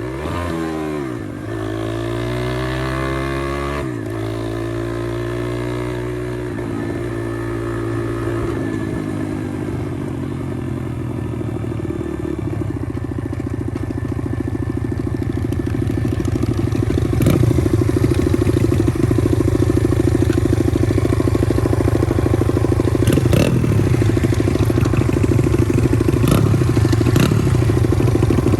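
Pit bike engine under way: it revs up and shifts twice in the first few seconds, then its pitch eases down over several seconds. It then settles into a steady, rough running note that grows louder about two-thirds of the way through, with a few short blips of the throttle near the end.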